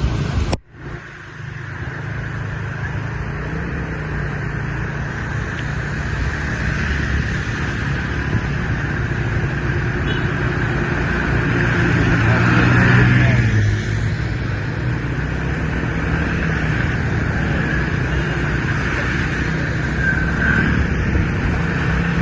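Steady road traffic noise, with one vehicle passing close and loudest about 13 seconds in.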